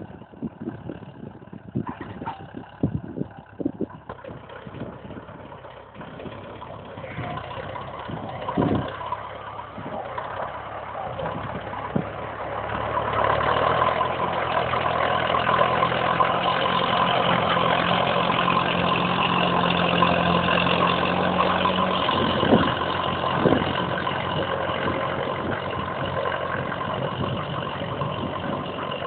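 Farm tractor's diesel engine working under load as it pulls a 13-tine duck-foot cultivator through ploughed soil. Quieter at first with a few scattered knocks, it grows much louder a little before halfway as the tractor comes close, then eases off slightly near the end.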